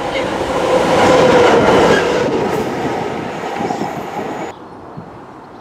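Class 66 diesel freight locomotive passing close at speed, its engine note and running noise at their loudest a second or two in. The sound cuts off suddenly about four and a half seconds in, leaving a quiet background.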